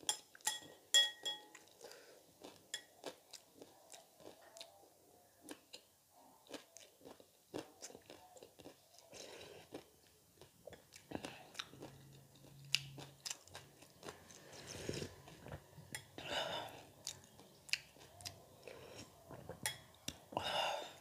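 Close-miked chewing and crunching of crisp street snacks (pani puri and chatpate), with a metal spoon clinking against a glass bowl in the first second or so.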